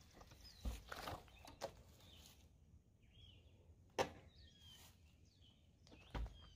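Rear door of a Ford E-150 conversion van being worked open: a few knocks and latch clicks, the sharpest about four seconds in. Birds chirp faintly in between.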